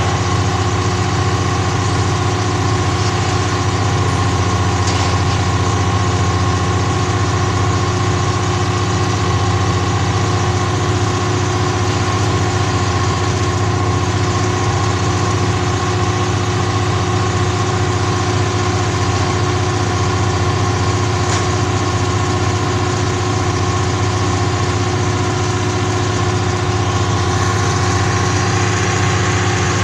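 Engine of a truck-mounted crane running steadily at a constant idle, with no change in speed.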